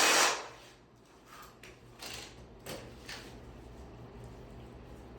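A power tool running loudly stops about half a second in. It is followed by a few faint knocks and scrapes over a low steady hum.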